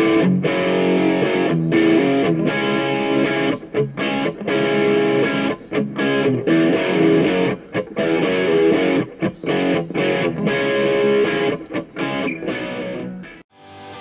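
Outro music led by distorted electric guitar. It cuts off shortly before the end, where a different cue of quick repeated notes begins.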